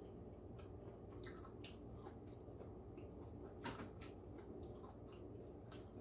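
Faint wet chewing of beef tripe: scattered soft mouth clicks and smacks, the sharpest a little past halfway, over a low steady hum.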